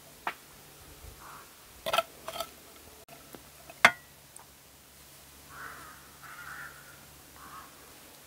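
Metal spoon clinking and scraping against a frying pan and a baking pan as food is spooned and spread, several separate sharp clinks, the loudest about four seconds in with a short ring.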